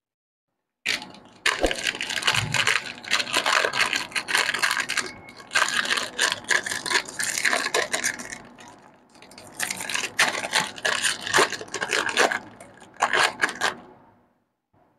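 A plastic candy wrapper of a caramel lollipop being torn open and peeled off by hand, crinkling and crackling. It starts suddenly about a second in, eases off briefly midway, then crinkles again before fading out near the end.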